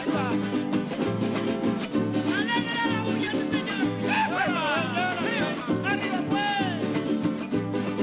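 Golpe larense played live: cuatros and small guitars strummed over a steady drum beat, with a high, wavering melody line on top.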